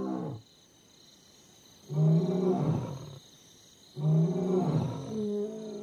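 Male African lion roaring: one long, deep roar about two seconds in and another about two seconds later, running straight into a further call near the end. It is a territorial roaring exchange with rival males before any fight.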